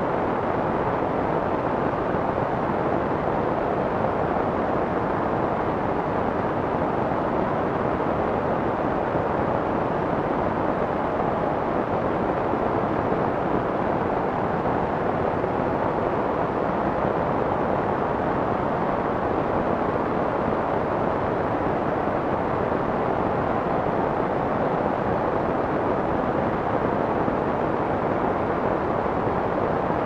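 Steady soft white noise with the high end rolled off: an even, muffled hiss that never changes.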